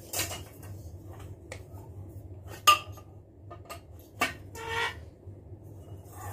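Black metal tubes of a laptop table frame knocking and clinking against each other as the legs are fitted together: a few sharp clanks, the loudest a little under halfway through, and one that rings briefly about three-quarters of the way through.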